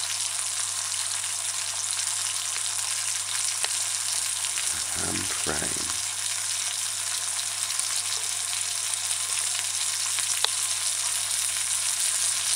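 Ham slices frying in cooking oil in a small stainless steel pot over medium-low heat: a steady sizzle with a few faint pops of spattering oil.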